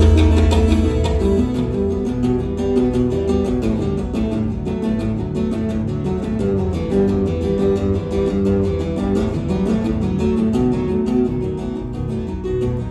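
Solo steel-string acoustic guitar played with both hands tapping notes on the fretboard: quick melodic runs over a held bass line. A deep bass note rings loudest at the start and fades about a second in.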